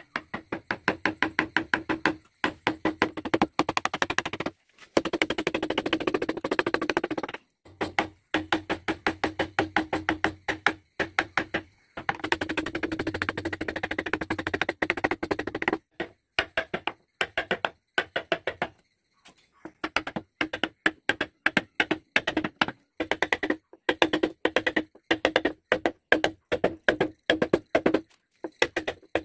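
A wood-carving gouge driven into a wooden board by quick, regular mallet taps, in runs broken by short pauses, with a low ring from the struck wood.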